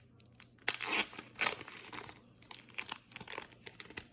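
Plastic packaging crinkling and rustling as sports cards are unwrapped by hand: two louder rustles about a second in, then a run of small crackles.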